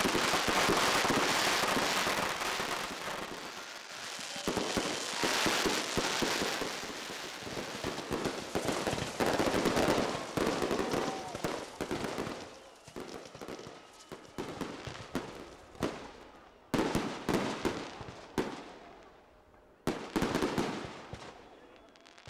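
A rapid series of crackles, pops and bangs, dense at first and thinning into separate bursts that die away near the end.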